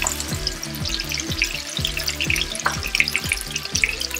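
Minced-chicken burger patties sizzling and crackling in hot olive oil in a frying pan, over background music with a steady beat.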